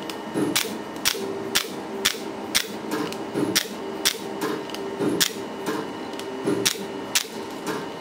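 Candela GentleMax Pro laser hair-removal handpiece firing pulse after pulse along the jaw and neck: a sharp click-pop about twice a second as each pulse goes off with its puff of cryogen cooling spray, over a faint steady hum from the machine.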